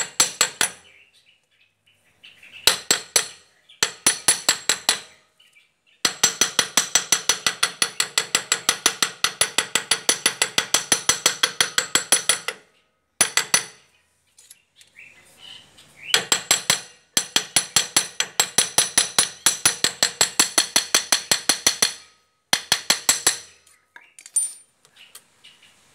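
Rapid hammer blows on a steel punch set in the hub of a Bajaj three-wheeler's rear brake drum, each strike ringing metallically. The strikes come about six a second, in short runs early on and two long runs of about six seconds each, starting about six seconds in and again after about sixteen seconds.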